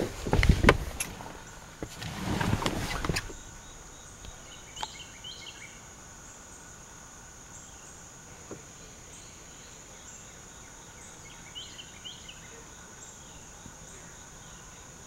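A few loud thumps and rustles of handling for the first three seconds, then a steady high drone of crickets and other insects, with a couple of faint short chirps.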